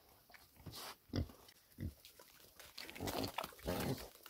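Domestic pigs, a sow and her piglets, grunting: a few short separate grunts, then a louder, busier run of grunting over the last second or so.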